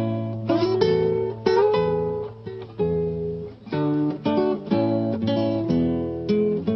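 Acoustic guitar playing an instrumental passage without singing, strummed and plucked chords struck roughly once or twice a second and left to ring.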